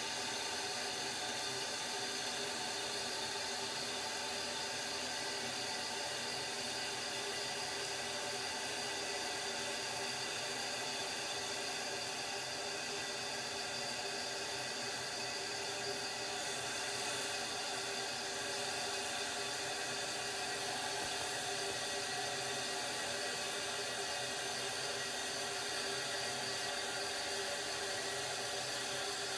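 Toilet tank refilling after a flush: the fill valve hisses steadily as water runs into the tank, with a few faint steady tones in the hiss.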